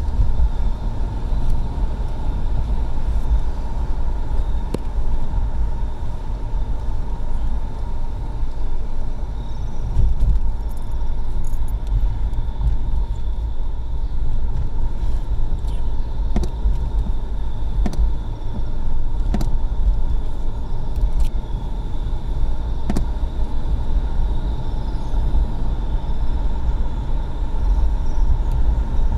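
Car driving at steady speed, heard from inside the cabin: a steady low rumble of engine and tyre noise.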